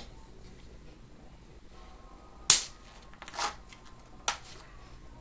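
A key or similar sharp object punching into an aluminium beer can to make a shotgunning hole: one sharp, loud pop about halfway in, a short hiss of escaping gas, and a smaller click near the end.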